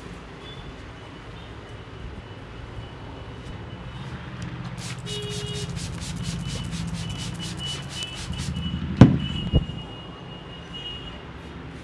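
Hands rubbing over the head and hair during a head massage, growing louder and briefly quick and rhythmic about halfway in. Two sharp smacks about nine seconds in, a split second apart, the first the louder.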